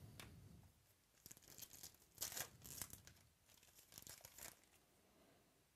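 Trading-card pack wrapper being torn open by hand, with faint crinkling rips over a few seconds, loudest about two seconds in. A soft handling bump comes at the start.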